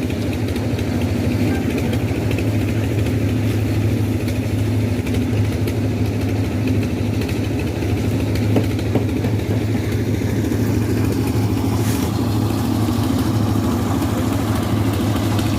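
Engine of heavy concreting equipment, such as a concrete pump or mixer truck, running steadily at an even speed.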